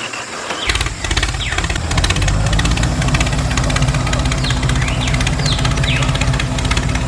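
A tractor engine sound, most likely an added sound effect, starts a little under a second in and then runs steadily at an even chug.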